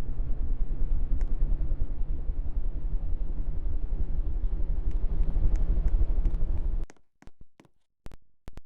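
Wobbling ceiling fan running, making a steady low rumble and hum. The sound cuts off suddenly about seven seconds in, followed by a few sharp clicks.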